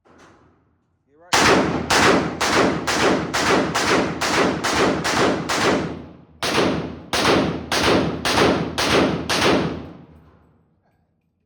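Draco AK-pattern pistol in 7.62×39 fired semi-automatically in rapid succession, about two shots a second. A string of about ten shots is followed by a brief pause and then about seven more, each with a ringing tail.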